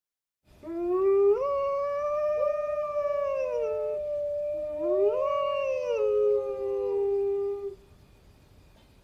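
Two long canine howls, each rising in pitch, held, then sliding down; the second one ends on a lower held note.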